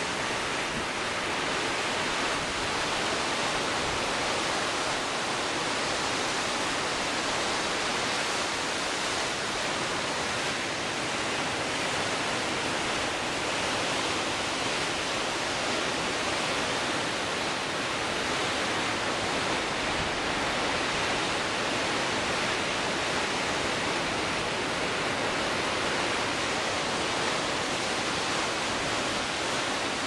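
Storm waves breaking continuously on a lakeshore in gale-force wind: a steady, unbroken rush of surf and wind.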